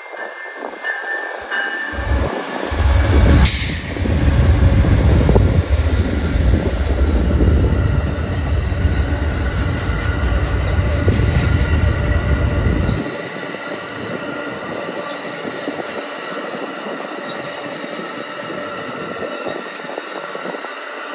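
Amtrak GE Genesis diesel locomotives passing at speed with a heavy deep rumble that drops away suddenly about 13 seconds in, with one sharp crack about three and a half seconds in. After that, bilevel Superliner passenger cars roll by with a steady rush of wheels on rail and faint high wheel-squeal tones.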